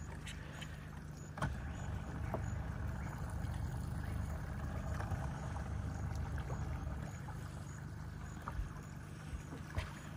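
Boat motor running low and steady at slow trolling speed, a little louder from about a second and a half in, with a few light knocks.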